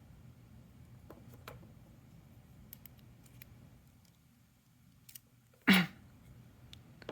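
Faint, scattered small clicks and taps of the gutted Miwa magnetic cam lock's metal core and parts being handled. One short, louder sound comes a little under six seconds in.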